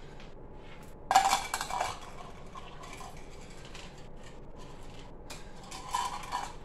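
Small coloured pieces clicking and rattling as they are dropped by hand into clear cups while being sorted by colour, with a louder clatter about a second in and another near the end.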